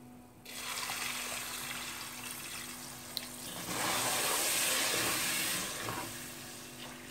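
Water poured into a hot pot of ghee-roasted saravle, a steady rush of water that starts about half a second in, is loudest around four to five seconds in, and fades toward the end.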